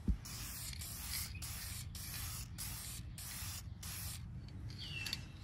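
Aerosol can of Dupli-Color vinyl and fabric paint spraying in a run of short hisses with brief breaks between them, stopping about four seconds in.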